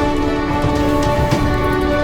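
Background music laid over the video: steady held notes with a regular beat.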